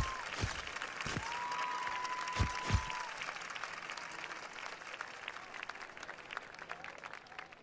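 Crowd applauding and cheering, with one long whistle over it and a few sharp pops in the first three seconds. The applause fades away toward the end.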